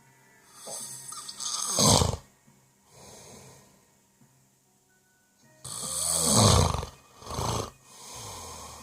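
Snoring in two rounds. A loud snore swells to a peak about two seconds in and is followed by a softer breath. After a short lull, another loud snore comes about six seconds in, followed by two shorter, softer breaths.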